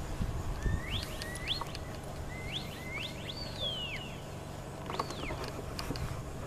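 Herding whistle commands to a working border collie: a run of short rising whistles, then a long whistle that rises and falls, and another rise-and-fall about five seconds in, over a steady low rumble.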